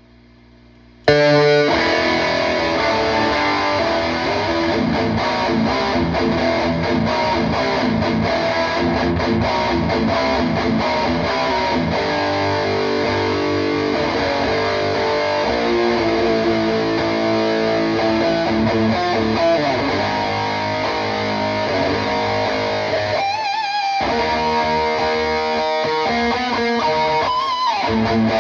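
Electric guitar played with heavy distortion through a PRS Archon 50 tube amp head and a cabinet loaded with Celestion Vintage 30 speakers. After a second of faint amp hum the playing starts suddenly and runs on in dense riffs, with a brief break about 24 seconds in.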